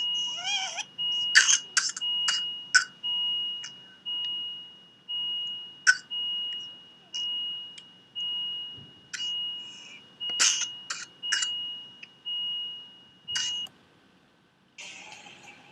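Medical monitor beeping, a high tone repeating about twice a second, mixed with sharp clicks and knocks; the beeping stops near the end.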